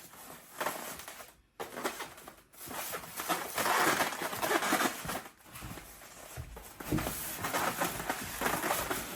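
Packaging being handled while the espresso machine is unpacked: irregular rustling and crinkling, with brief pauses.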